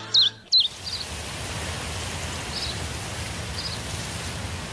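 Steady rushing of a stream's flowing water, with a few faint bird chirps over it.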